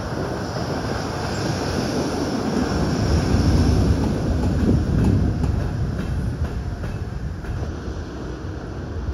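JR Freight EH200 electric locomotive moving past at low speed during shunting, its wheels running over the rails and points. It grows loudest about three to five seconds in as it passes close by, then fades, with a few light clicks from the wheels.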